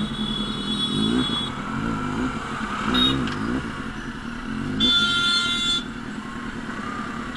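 Kawasaki Z800 inline-four with a loud aftermarket exhaust running at low speed in traffic, its pitch rising and falling in several short revs as the throttle is worked. Vehicle horns honk over it: one held for about the first second and a half, a short toot about three seconds in, and another of about a second around five seconds in.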